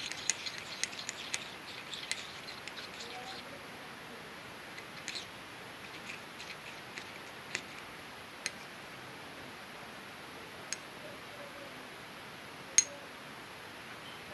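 A spoon clicking and tapping against a plastic container while stirring a glue and dish-soap slime mixture: a quick run of small clicks for the first few seconds, then a few isolated taps, the sharpest near the end.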